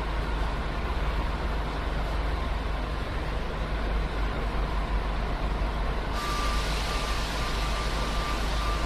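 Steady low rumble of a moving vehicle. About six seconds in a brighter hiss joins it, along with a faint high steady tone that breaks off twice.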